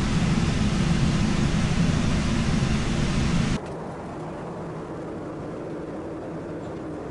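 Steady cabin noise of an airliner in flight: a low rumbling roar of engines and airflow with a faint steady hum. About three and a half seconds in it drops suddenly to a quieter, thinner hiss.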